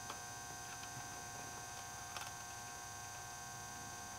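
Steady electrical mains hum with a high steady whine over it. Two faint clicks, near the start and about two seconds in, come from the plastic MAP sensor being twisted loose in the intake manifold by hand.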